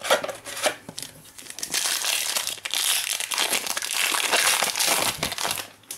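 Foil wrapper of a Panini Prizm Fast Break trading card pack crinkling as it is handled and opened. A few separate crackles at first, then continuous crinkling from about a second and a half in until just before the end.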